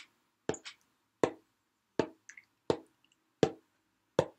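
Tiptoeing footsteps sound effect: six soft, evenly spaced clicks, about one every three-quarters of a second, each with a short hollow ring.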